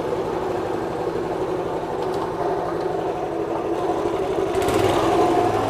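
Garlic grinding machine with stone grinding discs running steadily. About four and a half seconds in, its sound grows louder and fuller as garlic goes through the grinder.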